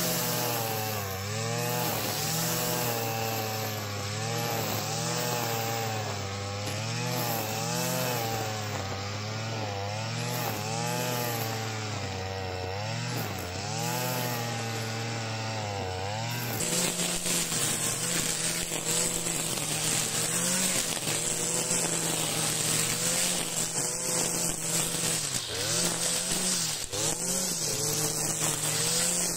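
Stihl FS 460 brushcutter's two-stroke engine running at high speed, spinning a trimmer-line head through tall, rain-soaked grass. Its pitch dips and rises again every second or two. About halfway through the sound changes abruptly to a steadier pitch with more hiss.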